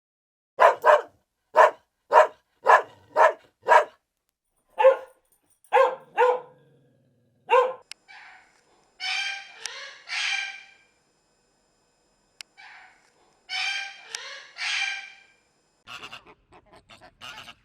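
A dog barking in a run of short, sharp barks, followed by a few longer, drawn-out animal calls and a flurry of short calls near the end.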